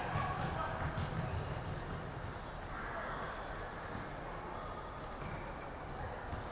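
Basketball game in a large sports hall: the ball bouncing on the wooden court with dull repeated thumps, mixed with short high squeaks and faint players' voices.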